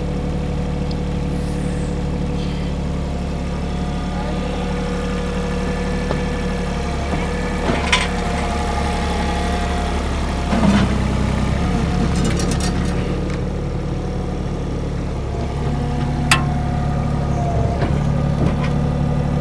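Diesel engine of a Cat 303 mini excavator running steadily under changing hydraulic load as it digs, its note shifting a few times. Three sharp knocks stand out, about 8, 11 and 16 seconds in.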